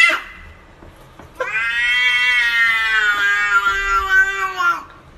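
A domestic cat giving one long, drawn-out meow, about three and a half seconds, starting about a second and a half in and dropping slightly in pitch at its end. Just at the start, the end of an earlier rising meow cuts off.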